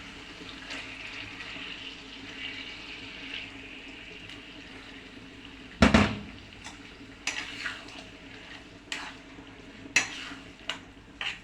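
Chicken pieces frying in a pan of oily spice paste with a steady faint sizzle, and a spatula knocking and scraping against the pan as they are stirred. One loud clatter of utensil on pan comes about six seconds in, then a run of shorter knocks.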